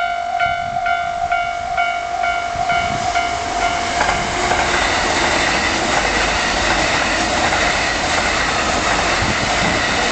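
Level-crossing bell ringing about twice a second. About four seconds in, a Kintetsu limited express train starts passing over the crossing, and the rush and clatter of its wheels drown out the bell.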